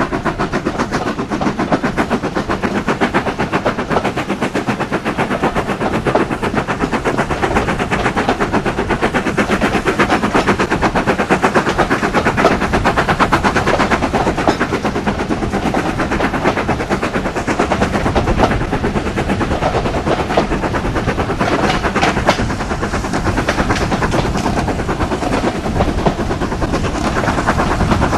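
Heritage train running, heard from on board, with a loud, rapid, steady beat throughout.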